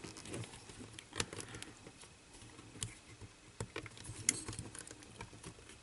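Faint, scattered small clicks and ticks as a wire spring and plastic parts of a cassette tape mechanism are handled by fingers and the spring is hooked into place.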